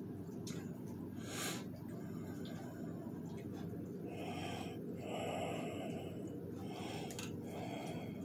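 A house cat breathing hard in short, rasping breaths, roughly one a second from about halfway through. It is out of breath after chasing.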